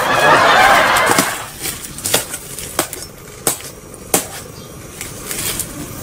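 Fibrous coconut palm crown rustling and tearing for about the first second, then a machete chopping into it: about five sharp blows at a steady pace, getting fainter toward the end.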